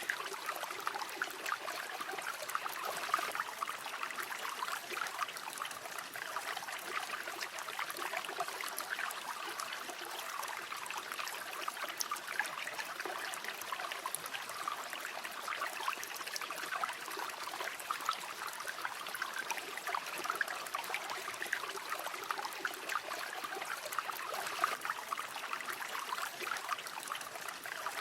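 River water flowing steadily over stones, a continuous babbling and trickling.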